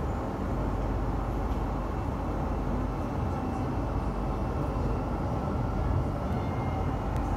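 Istanbul M2 metro train running, heard from on board: a steady low rumble as it moves along a station platform.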